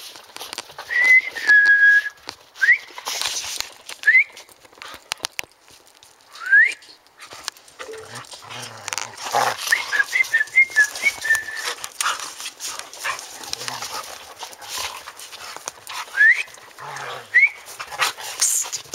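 A person whistling to two playing standard poodles: a held note near the start, then short rising whistles again and again, with a quick warbling run of whistled notes midway. The dogs' scuffling and play noises fill the gaps between the whistles.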